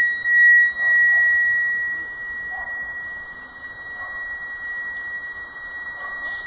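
A steady, high-pitched whistling tone of unknown origin that holds one pitch without a break. It is loud and grating, and no one on the spot can place its source.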